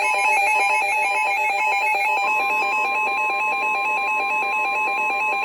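Emergency alert broadcast alarm: a loud warbling electronic alert that trills rapidly between two pitches, like a phone ringing. About two seconds in, a steady single-pitch alert tone joins it, typical of the NOAA Weather Radio 1050 Hz warning alarm that signals a warning is about to be read.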